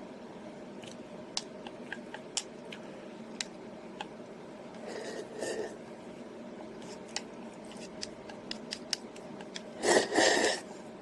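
Eating sounds from a person eating instant chicken ramen and bread: many small scattered clicks. There is a louder short noisy sound about five seconds in, and the loudest one just before the end.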